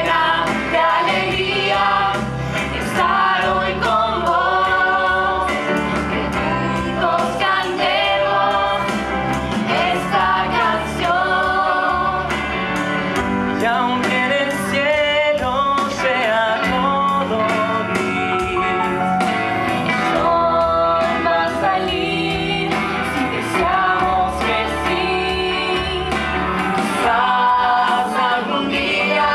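A musical-theatre song performed live: a group of voices singing together over a band with electric guitars and a steady beat.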